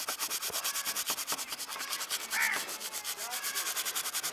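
Sandpaper scrubbing a rusty steel saw blade coated in sand and rust-removal chemical, a gritty scratching in quick, even back-and-forth strokes. A bird calls once about halfway through.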